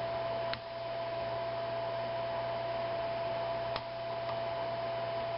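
Steady electrical hum with a constant high tone under it, and two faint light clicks about three seconds apart from a pick and tension wrench working the pin tumblers of a mortise lock cylinder.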